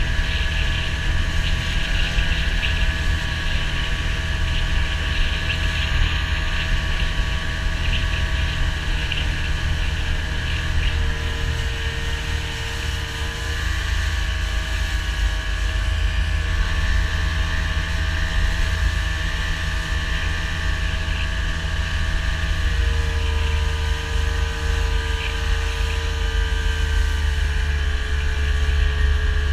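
A motor vehicle's engine running steadily for a long stretch over a heavy low rumble, its pitch shifting slightly a couple of times.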